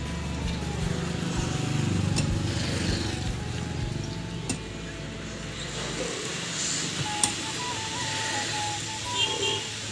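Hand tools striking an old plastered wall as it is knocked down: a few sharp knocks, the loudest about seven seconds in, over a low steady hum that fades about six seconds in.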